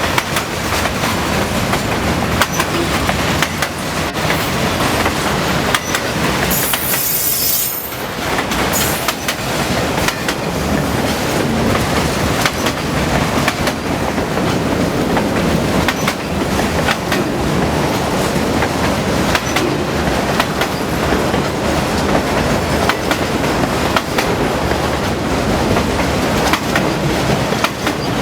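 Elgin, Joliet & Eastern train rolling past, its wheels clicking and clattering steadily over the rail joints, with a brief high squeal about seven seconds in.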